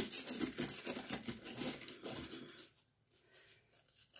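Irregular gritty scraping and rustling from a sugar-and-coconut-oil body scrub being worked and mixed by hand, stopping about two and a half seconds in.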